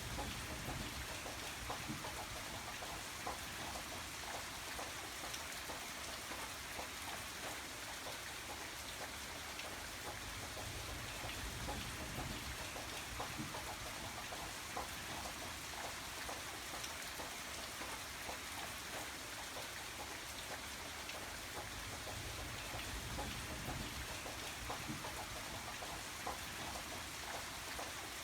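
Steady rain falling, with many separate drops ticking on a surface over an even hiss and a soft low rumble that swells and fades every few seconds.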